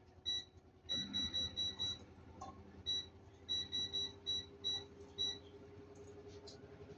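Samsung washing machine's electronic beeper sounding a string of about fifteen short, high beeps, all at one pitch, in uneven groups, over a low steady hum.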